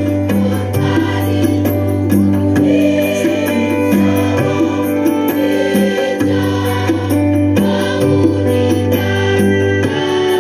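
Large student choir singing an Indonesian patriotic song in sustained, held notes over a steady low accompaniment note.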